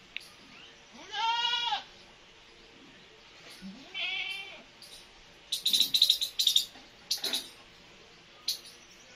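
Kitten meowing: one long rising-and-falling meow about a second in and a shorter one about four seconds in. In between, a rapid run of short, sharp, high-pitched chirps, the loudest sound, with a couple more later.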